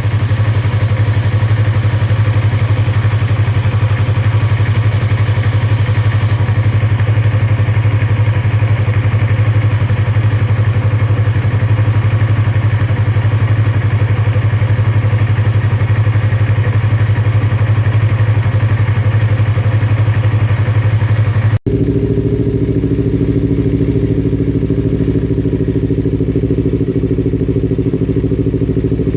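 An engine running steadily at constant speed. About three-quarters of the way through it cuts off abruptly and is replaced at once by a different steady engine-like running, pitched higher.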